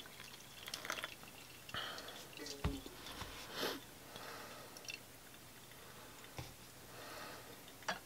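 Faint dripping of coffee brewing through two metal-mesh pour-over filters, a Stanley pour-over and a Swiss Gold gold filter, into ceramic mugs. A soft clunk about two and a half seconds in as the steel kettle is set down, and a light click near the end.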